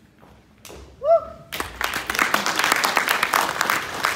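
Audience applauding: dense clapping breaks out about a second and a half in, just after a short whooping cry from one voice.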